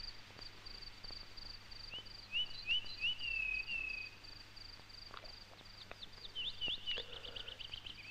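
Nature sounds of birds and insects. A high chirp repeats about three times a second, a bird's downward-gliding whistled notes come about two seconds in, and a quick run of chirps comes near the end.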